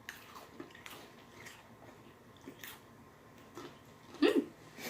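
Faint scattered crunches of chocolate Pocky biscuit sticks being bitten and chewed, with a short vocal murmur near the end.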